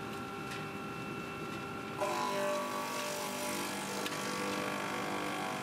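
UPT-250M multi-rip circular sawing machine with milling heads running, a steady mechanical whine of its motors and cutters. About two seconds in it grows louder, with more tones added.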